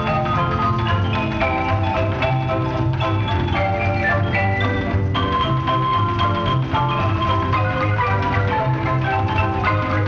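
Up-tempo marimba band music: quick runs of mallet notes on marimbas over a steady plucked double-bass beat.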